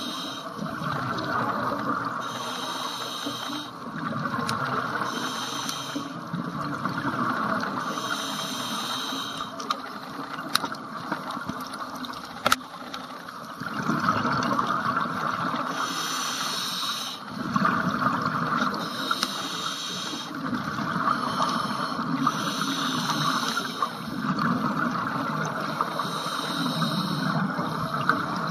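Scuba diver's regulator breathing underwater: an inhaled hiss recurring every two to three seconds, with exhaled bubbles rumbling between breaths. One sharp click near the middle.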